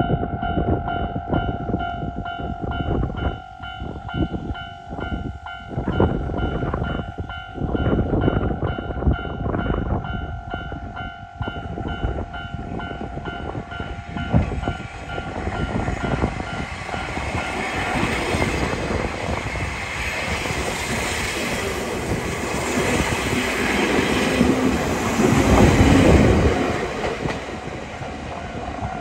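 Sangi Railway electric train pulling in alongside a station platform, its wheel and running noise growing louder to a peak with a low rumble near the end. For the first half a steady ringing tone sounds with irregular knocks, and it stops about halfway.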